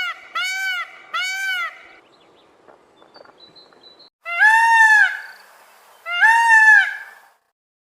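Peacock calling: a quick series of short, honking calls about every half second, then after a pause two long, loud calls that rise and fall in pitch, about two seconds apart.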